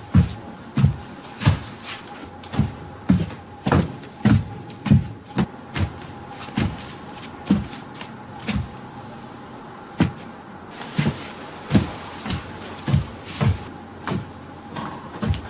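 A man's footsteps walking at a steady pace on a hard floor: heavy heel strikes about one and a half a second, a few of them doubled, over a faint steady hum.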